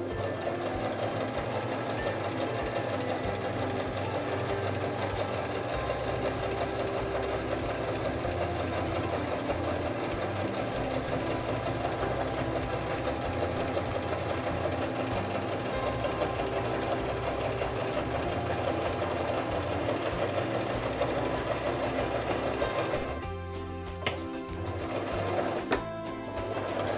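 Domestic electric sewing machine running steadily while stitching an open zigzag stitch. It stops near the end, with two clicks, then runs briefly again.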